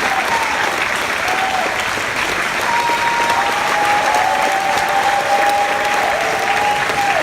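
Audience applauding steadily, with a few long high tones held over the clapping from a little before the middle onward.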